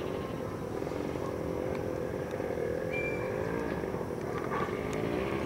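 Distant mototaxi engine running, its pitch wavering up and down as it travels through the town.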